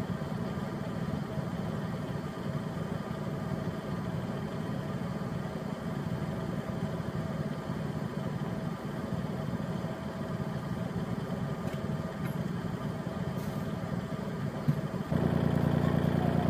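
Compact tractor's diesel engine idling steadily. About 15 seconds in it becomes louder and more even.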